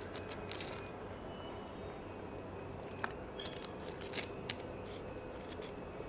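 Soundtrack of a short animation film played over speakers: a steady low background with a few sharp clicks, the loudest about three seconds in and two more a second or so later.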